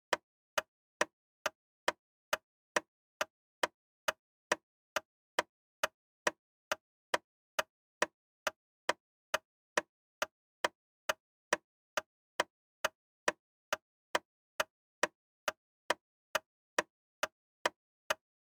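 Timer sound effect ticking steadily like a clock, a little over two sharp ticks a second, marking time running for an activity.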